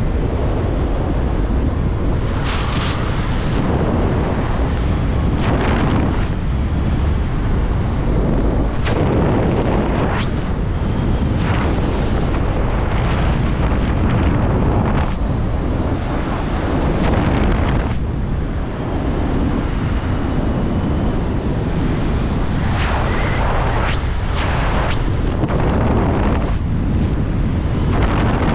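Freefall wind blasting across a skydiver's camera microphone: a loud, steady rush with brief harsher gusts every few seconds.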